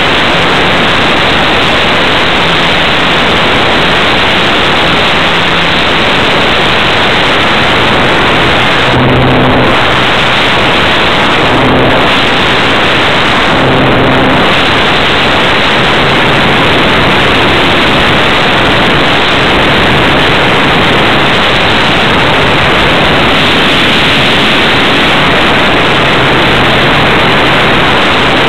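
Loud, steady rushing noise of air over the microphone of a camera mounted on a radio-controlled model airplane in flight. A low hum comes through briefly three times, about a third of the way in and again near the middle.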